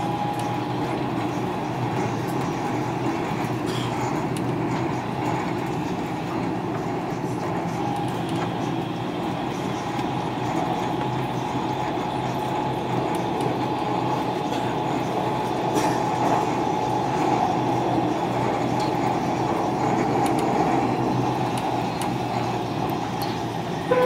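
Dubai Metro train running along an elevated track, heard from inside the car: a steady rumble of wheels on rails with a faint steady whine.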